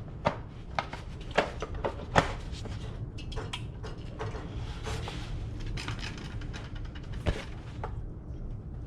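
Scattered clicks and knocks of diesel heater parts being handled and fitted back into the heater's housing, with a few sharper knocks in the first couple of seconds and one more near the end.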